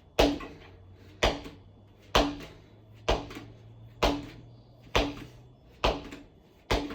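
Inflated tubeless mountain bike wheel bounced on the floor eight times, about once a second, each thud with a short hollow ring from the tire and rim. The bouncing spreads the sealant inside the tire to seal any leaks.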